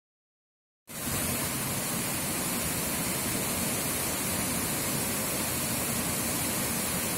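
Small waterfall pouring over a stone ledge onto rocks: a steady rushing of water that cuts in suddenly about a second in, after complete silence.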